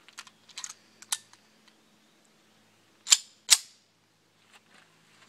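Two sharp pistol shots from a Colt 1903 Pocket Hammerless in .32 ACP, about half a second apart, after a few light handling clicks. The quick second shot shows that the 60 grain handload fired, cycled the slide and fed the next round.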